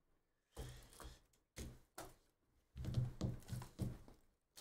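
Trading cards handled and flipped through in the hands, with three short bursts of rustling and soft taps, the longest in the second half.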